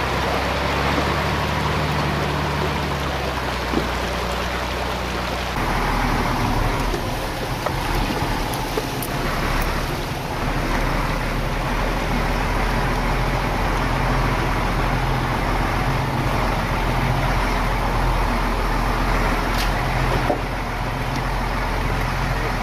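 Diesel engine of a Scania 4x4 truck running steadily as it drives through a shallow stream, with rushing water. About five seconds in, this gives way to a heavier, pulsing engine rumble and rough-road noise heard from inside the cab.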